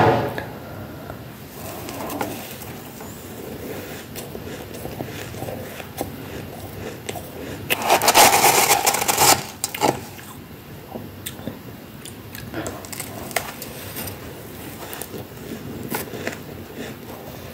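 Freezer frost being bitten and crunched in the mouth, a run of small irregular crackles. About eight seconds in, a metal spoon digs and scrapes through the tub of frost for a second or so, the loudest sound.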